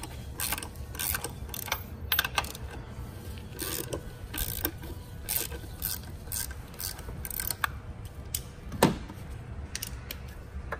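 Hand ratchet clicking in short, irregular runs as a socket on an extension bar loosens the nuts on a car's engine mount. There is one louder metal knock about nine seconds in.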